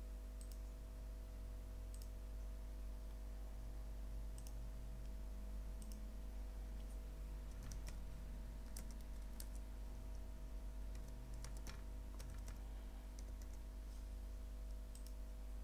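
Faint computer keyboard typing and mouse clicks: scattered single keystrokes, with a low steady hum underneath.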